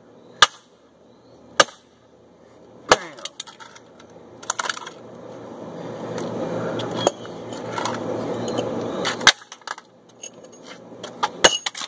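Sharp chopping blows against the plastic LEGO Darth Vader alarm clock as its legs are cut off: three separate strikes in the first few seconds. Then a rough, scraping noise builds louder for about five seconds and stops suddenly with a knock, followed by a few lighter clicks.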